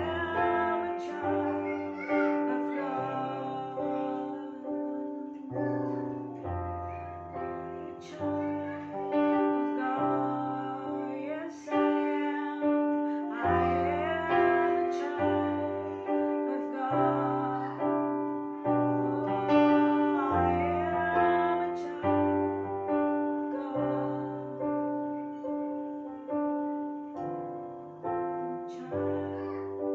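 Slow worship music on a keyboard with a piano sound. Sustained chords are struck about once a second and die away, over a bass note that changes every couple of seconds.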